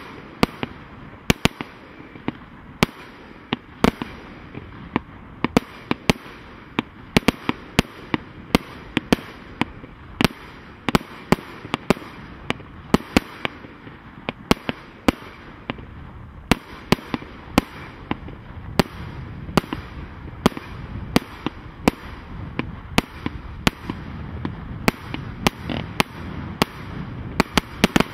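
Mars Pyrotechnics 'The Godfather Part 3' firework barrage cake firing: a long, irregular string of sharp bangs, roughly two a second, that ends at the close of the display.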